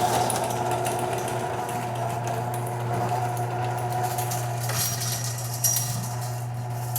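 Chain-drive garage door opener running steadily as it lowers the door, a constant motor hum under a continuous clatter from the drive chain, with one sharper knock about five and a half seconds in. The chain is slack and slaps as it runs.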